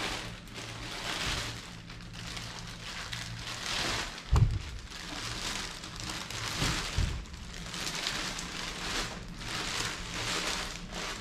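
Clear plastic bag crinkling and rustling in irregular swells as it is pulled off a model wheel loader, with a dull knock about four and a half seconds in and a couple of softer ones around seven seconds.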